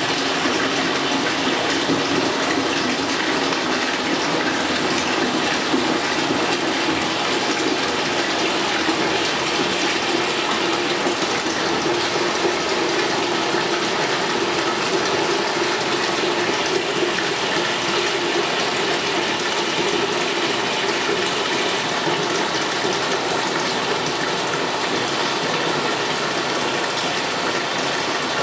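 Water running steadily at full flow from a Delta MultiChoice tub and shower valve into a 5-gallon bucket, a timed flow test of its RP46074 cartridge opened up to 13/64, good for about 5 gallons a minute.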